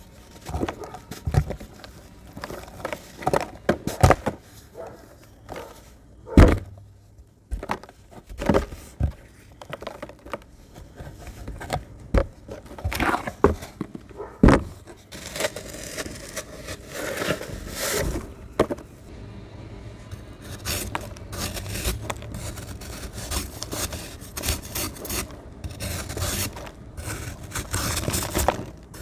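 Clumps of dry, crunchy sand being crumbled by hand, with irregular sharp crunches and crackles that thicken about halfway through into a dense, continuous gritty crackle.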